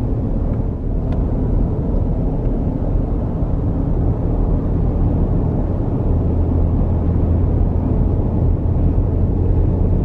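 Road and engine noise inside a Toyota's cabin at freeway speed: a steady low rumble that grows deeper and louder about six seconds in.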